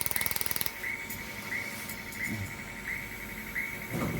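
Pulsed YAG laser welder firing a rapid, even train of clicks that stops about a second in. A steady machine hum follows, with a short high chirp repeating about every 0.7 s.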